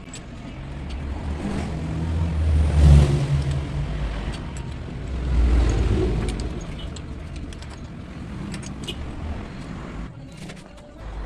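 A passing motor vehicle's engine, swelling to a peak about three seconds in and again around five to six seconds in, with scattered small clicks.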